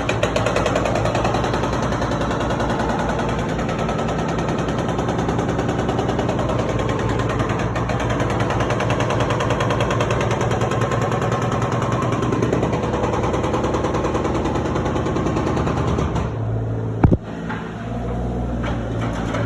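Hydraulic breaker hammering concrete in a rapid, steady rattle that stops about 16 seconds in. The machine's engine keeps running underneath, with one sharp bang shortly after.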